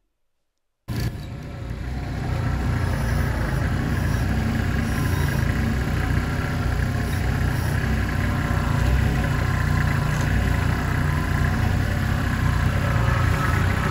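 Kubota compact tractor's diesel engine running steadily as it carries a utility pole on its front loader, starting about a second in.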